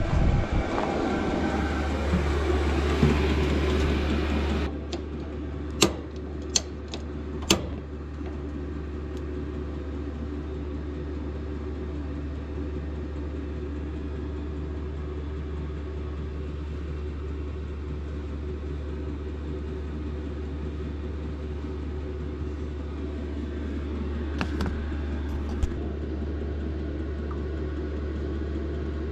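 Steady low hum of a running motor, under a louder rushing noise for the first few seconds that stops abruptly. A few sharp clicks come about six to seven seconds in and again near the end.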